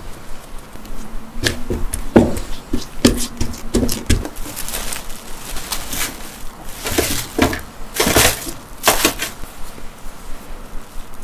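A few soft knocks and taps, then plastic cling film crinkling and rustling in bursts as it is pressed into a metal loaf pan, loudest near the end.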